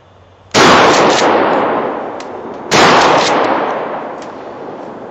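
Two shotgun slug shots from a Remington 870 pump-action, a little over two seconds apart. Each is a sharp blast that echoes and dies away slowly through the woods.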